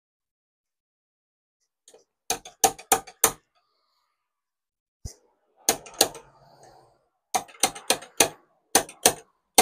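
Slide hammer of a glue-on dent puller kit knocking sharply against its stop in quick runs of two to four strokes, pulling on a tab glued to a car tailgate dent that is not even budging.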